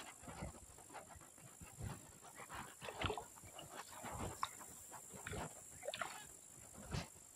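Scattered small rustles and knocks as a fish is brought in on the line through dry reeds and handled close to the microphone, with a few brief squeaky sounds among them.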